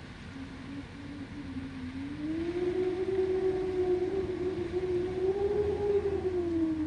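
Winter wind moaning: a hollow pitched howl that climbs about two seconds in, holds and wavers, swells once more, then sinks near the end, over a low steady rumble of wind.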